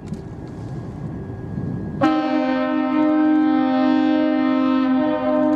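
A ship's horn sounds one long blast of two low notes together. It starts suddenly about two seconds in over a low rumbling background and holds steady.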